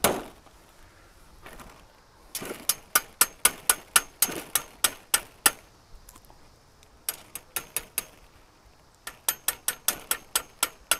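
Hammer blows driving a yard sign's stake into lawn ground: sharp strikes about three or four a second, in three runs with short pauses between.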